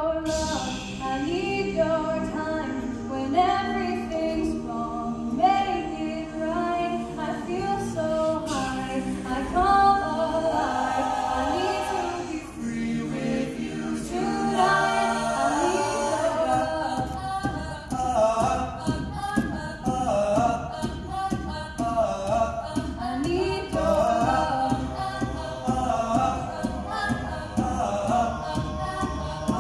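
Mixed-voice student a cappella ensemble singing a pop song in several-part harmony, no instruments. A steady beat joins about halfway through.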